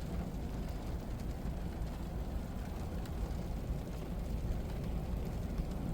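Steady low rumble of a vehicle on the move, with no distinct events.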